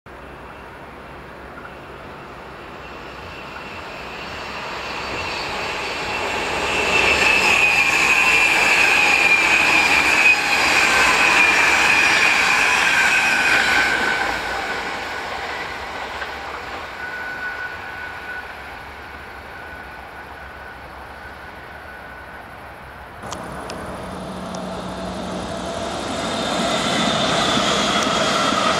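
An NS double-deck electric passenger train (VIRM) approaches and passes, growing loud with a high, slowly falling squeal over the rush of the wheels. About three quarters of the way in, the sound cuts to an NS Sprinter electric multiple unit passing close by, building up to the end.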